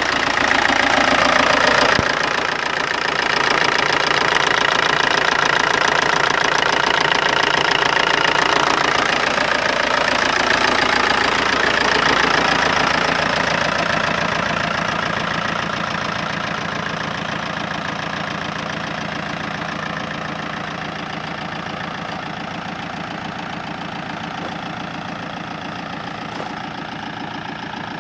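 MG ZR TD's 2.0 turbodiesel engine running with a ticking noise from the engine. It runs louder through the first half, with the engine note rising and falling, then eases down and runs more quietly.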